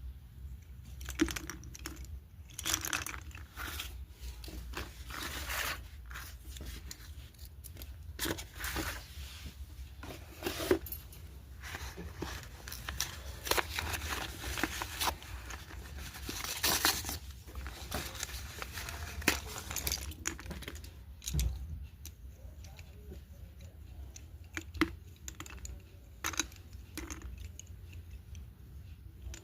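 Paper and plastic packaging of a box of slate pencils being handled and torn open: irregular tearing, crinkling and small clicks and taps.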